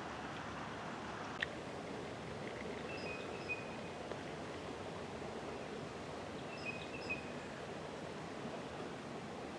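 Steady outdoor background hiss with a bird's short, high chirps in two brief clusters, about three seconds in and again around seven seconds. A single sharp click comes about a second and a half in.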